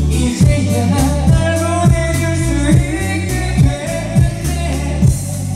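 Karaoke: a man singing into a microphone over a backing track with a steady bass line and a regular thudding beat.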